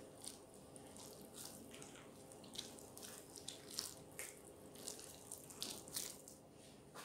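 A hand kneading wet, freshly watered almond-flour biscuit dough in a bowl: faint, irregular soft wet sounds, several a second.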